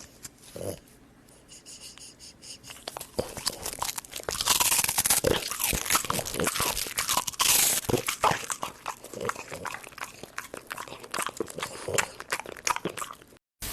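Rapid, irregular crunching of something crisp being bitten and chewed, loudest from about four to eight seconds in, then cutting off suddenly near the end.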